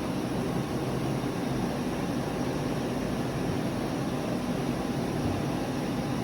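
CNC machining center running: a steady hum with an even rushing noise that holds level throughout.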